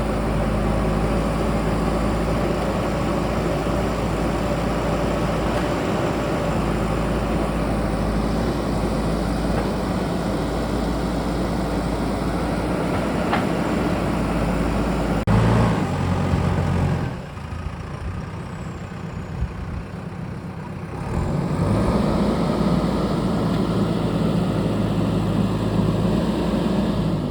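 JCB backhoe loader's diesel engine running hard while it digs. About two-thirds of the way through it drops back to a lower idle for a few seconds, then revs up again.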